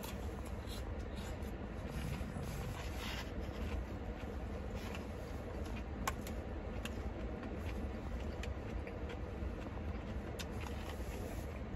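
Eating a salad with a spoon: chewing lettuce, with scattered small clicks and scrapes of a spoon in a plastic salad bowl. A steady low car-cabin rumble runs underneath.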